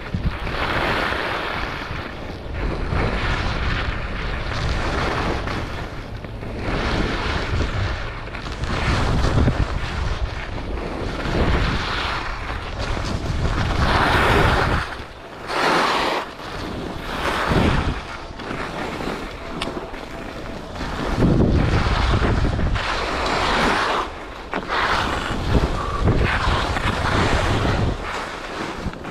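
Wind buffeting an action-camera microphone on a skier heading downhill, with the hiss of skis sliding and scraping over groomed snow, swelling and fading every few seconds.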